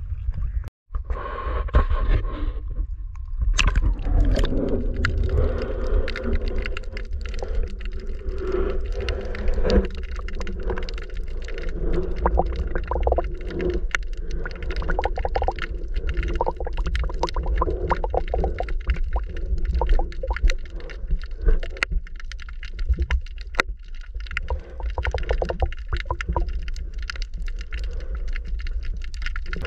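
Water sound picked up by a camera at the sea surface, turning muffled about three seconds in as it goes under: a constant low rumble peppered with many sharp clicks and crackles.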